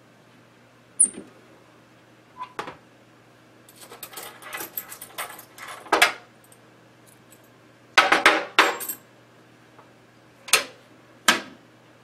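A metal lock box being opened and shut by hand: a sharp click, then clattering and clinking as a hand handles things inside, a burst of knocks and clacks, and two single sharp knocks near the end as the lid comes down.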